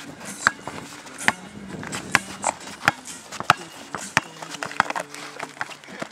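Basketball dribbled hard on a plastic tile court: a string of sharp bounces, roughly one or two a second.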